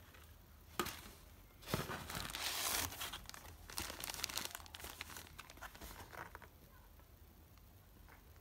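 Packaging being handled and crinkled: a sharp click about a second in, then a loud burst of crinkling, followed by scattered lighter crinkles that die away.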